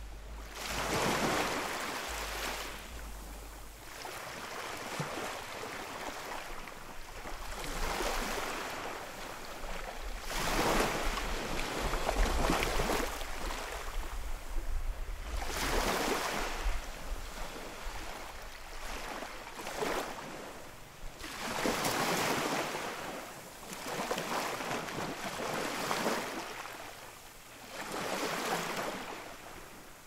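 Sea waves breaking and washing up on the shore, one surge every three to five seconds, each swelling and then falling away. A low rumble runs under the waves at times.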